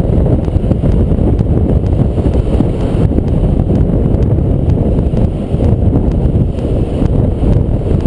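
Wind buffeting the microphone of a camera on a flying paraglider's harness: a steady, heavy low rumble.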